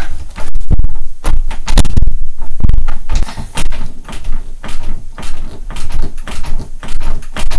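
Locked interior doorknob being twisted and rattled, giving loud, irregular clicks and knocks as the door jolts against its latch.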